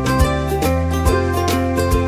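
Background music with a regular beat and sustained notes.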